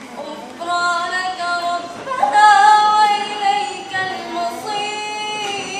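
A girl's voice reciting the Quran in the melodic, chanted style, drawing out long held notes. The voice comes in about half a second in and climbs to a long, louder note about two seconds in.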